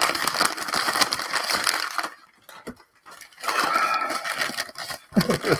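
Packing wrap crinkling and rustling as it is pulled off a wrapped ceramic piece, in two spells with a pause of about a second between them.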